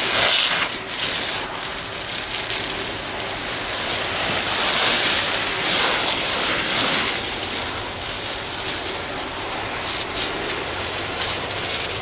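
Fire hose nozzle spraying a jet of water onto burnt forest ground: a steady hiss that swells around the middle.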